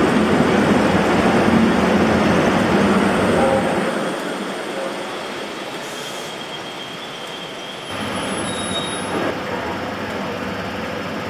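Class 90 electric locomotive hauling its coaches, with a steady rumble of wheels on rail. The sound drops noticeably about four seconds in, and faint high wheel squeal comes in later.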